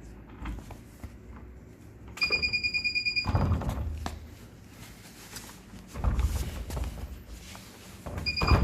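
Barcode scanner beeping: a rapid string of short, high beeps lasting about a second, then dull knocks and thuds of items being handled, and one more brief beep with a knock near the end.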